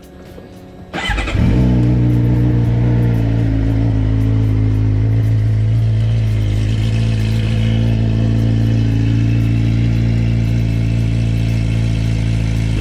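2017 Suzuki GSX-R600's inline-four engine starting about a second in, then idling steadily. It is being warmed up after a fresh oil change so the oil level can be checked.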